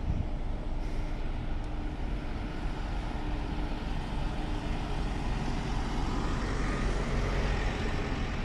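Road traffic: vehicle engines running with a steady rumble and tyre noise, swelling briefly about seven seconds in.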